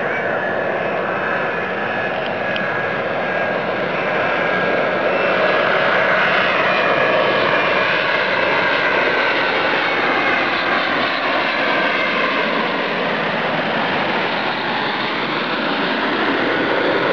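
Boeing 777 on final approach, its two turbofan engines making a steady jet rumble with whining tones that drift in pitch. It grows a little louder about five seconds in and stays loud as the plane passes low overhead.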